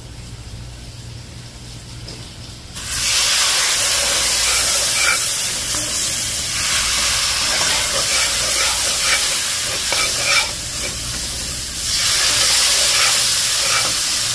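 Water hitting a hot pot of curry paste for curry duck sets off a loud, steady sizzle and hiss that starts suddenly about three seconds in, while a long metal spoon stirs through it.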